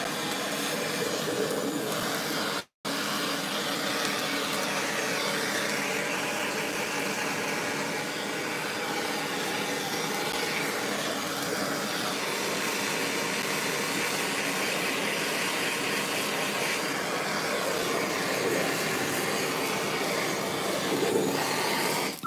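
Handheld MAP-gas torch burning with a steady hiss as its flame sears the crust on cooked beef short ribs. The torch is shut off at the very end.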